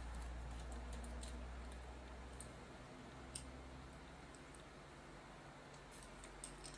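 Faint, scattered light clicks and ticks from handling a small metal tape-deck mechanism and working at its tiny screws, a few irregular clicks every second or so.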